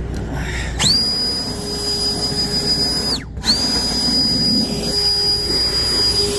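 Blower spinning up to a high whine about a second in, dropping in pitch as it cuts off briefly near the middle, then spinning back up and running steadily.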